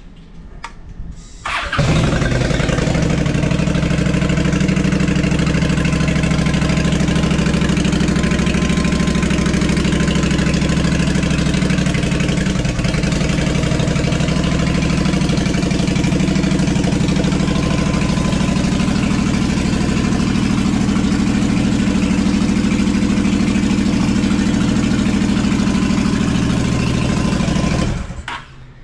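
Honda Shadow VT750's V-twin engine catching about a second and a half in and idling steadily through aftermarket baffled exhaust pipes, pretty loud, then cutting off suddenly near the end.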